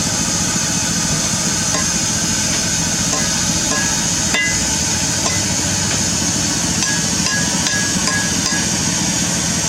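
Sany SR150C hydraulic rotary drilling rig running steadily: a low engine hum under a strong hydraulic hiss. A sharp metallic knock comes about four and a half seconds in, with light metallic clinks here and there.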